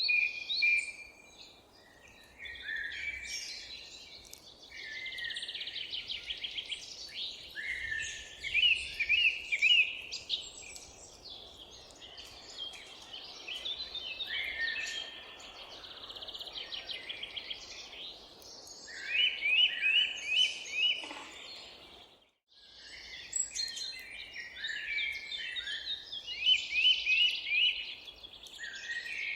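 Several songbirds singing and calling together, with quick chirps, trills and fast repeated notes, over a faint steady background hiss. Everything cuts out for a split second about three-quarters of the way through.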